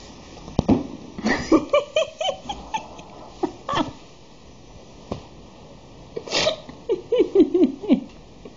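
Kitten mewing in quick runs of short calls, with a few thumps in between.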